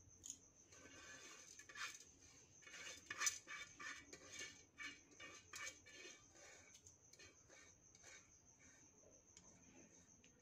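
Faint rustling and light clicks of raw rice grains being moved by hand in a rice cooker's inner pot, busiest in the first half and thinning out near the end.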